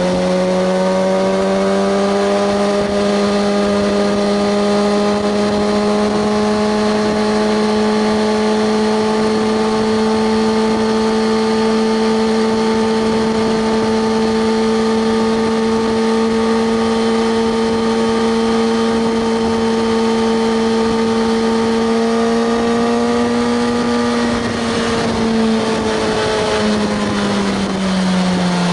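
Kawasaki ZX-6R 636's inline-four engine running at steady high revs. The pitch climbs slightly at the start, holds level, and drops away in the last few seconds as the revs come down.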